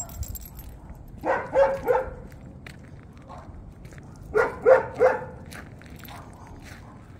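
A dog barking in quick runs of three short barks, twice.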